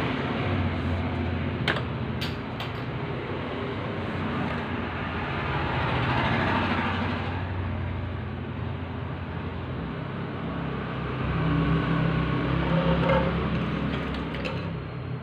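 Steady background rumble with a low hum. A few light clicks about two seconds in and near the end as the fuser's film sleeve and heater bar are handled.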